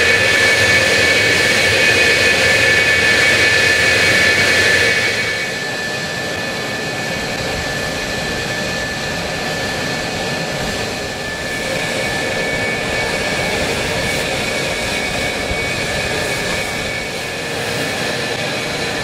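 Fighter jet engines running at idle on the ramp: a steady high turbine whine over a rushing rumble. It is loudest for the first five seconds or so, then drops a little and holds steady.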